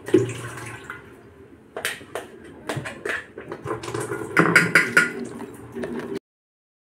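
Steel spoon scraping and knocking against a stainless-steel mixer-grinder jar and steel bowl while ground chana dal paste is scooped out: a run of sharp metallic clicks and scrapes, busiest in the middle, cutting off suddenly near the end.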